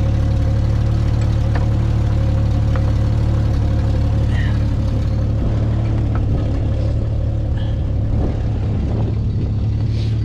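Jeep Cherokee XJ engine idling steadily.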